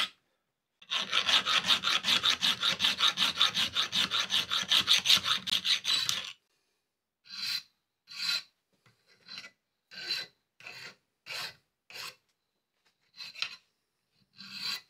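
Round hand file rasping the rough casting edges off a cast turnbuckle held in a bench vise. About a second in comes a run of quick, short strokes lasting some five seconds, then slower single strokes about one a second.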